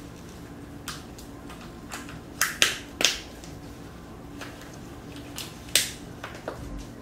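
Cooked lobster shell being cracked and pulled apart by gloved hands: a series of sharp cracks and snaps, loudest about two and a half and six seconds in.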